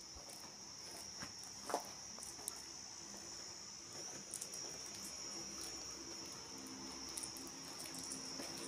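A steady, high-pitched insect drone carries on throughout, with a few faint clicks and taps in the first half.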